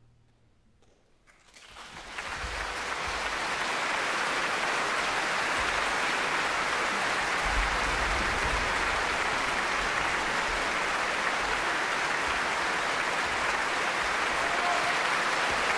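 About a second and a half of near silence, then a large concert-hall audience breaks into applause that swells and holds steady, the ovation at the end of an orchestral performance.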